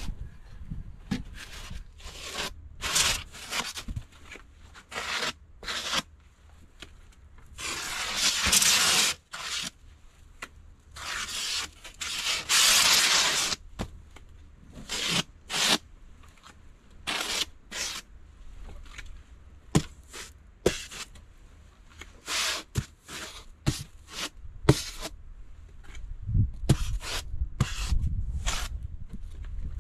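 Expanded polystyrene (EPS) insulation board being worked: many short rubbing and scraping strokes, with two longer tearing scrapes a little before 8 seconds and about 11 seconds in.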